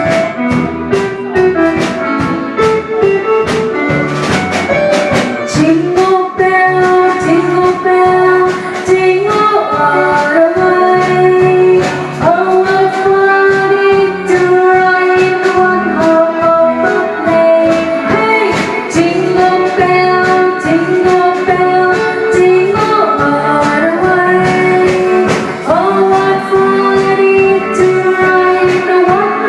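Live band music with a voice singing a melody of long, held notes over regular percussion hits.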